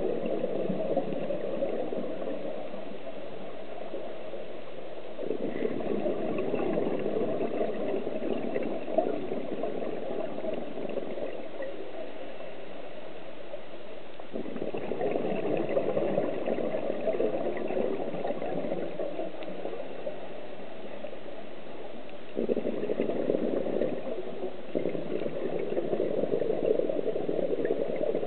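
Scuba diver's exhaled air bubbling out of the regulator, heard underwater. It comes in long bubbling stretches of several seconds, with quieter pauses between them for the in-breath.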